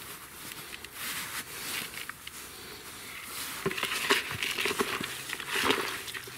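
Hands crumbling a lump of frozen millet and kneading it into damp groundbait in a plastic bucket: a grainy rustling with small cracks, louder and busier from a little past halfway.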